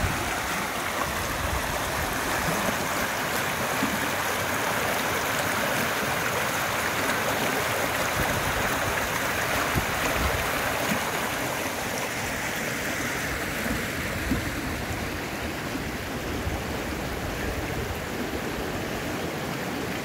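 Shallow mountain stream rushing and splashing over stones and boulders in small rapids: a steady rush of water, easing slightly about halfway through.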